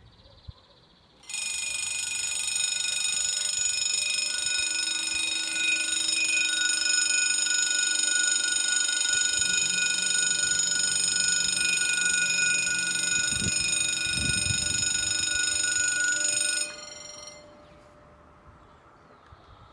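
Level crossing warning bell ringing steadily and shrilly, starting about a second in and cutting off sharply near the end.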